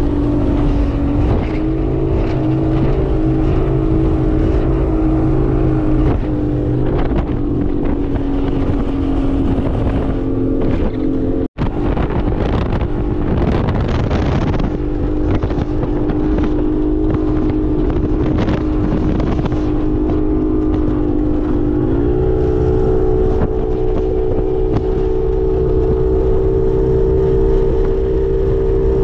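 Speedboat outboard motor running at speed, its steady drone slowly sagging in pitch, then cutting out for an instant about halfway through. The pitch steps up about three-quarters of the way through as the engine is throttled up. Wind and water rush over the microphone throughout.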